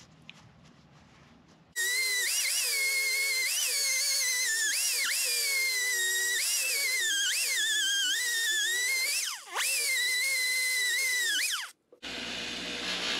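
Pneumatic die grinder with a small abrasive disc whining at high speed, starting about two seconds in. Its pitch sags and recovers again and again as it is pressed onto the worn pad of a Honda VTEC rocker arm to grind out the cam wear groove. It cuts out briefly near the end and then stops with a falling whine, after which a bench buffer runs steadily.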